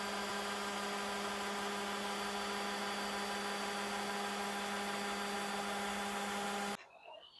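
Electric sander running steadily on a wooden board, a motor hum with a noisy hiss; it stops abruptly near the end.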